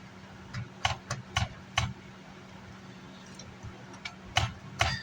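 Short sharp clicks and taps of hand tools and small metal parts as an amplifier is being unscrewed from its chassis: about five in the first two seconds, then two more near the end, over a faint steady hum.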